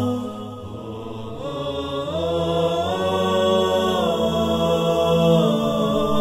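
Slow chanted vocal intro music with long held notes. It dips briefly about a second in, then swells again, with the notes stepping up about two seconds in and back down near four seconds.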